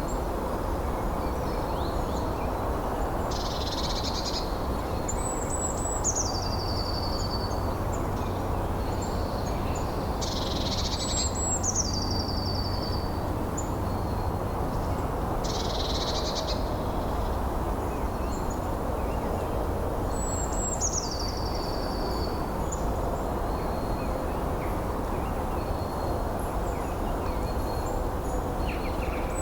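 Steady wind with a small bird singing a short high phrase that slides down in steps, repeated three times several seconds apart, with a few short rasping calls between.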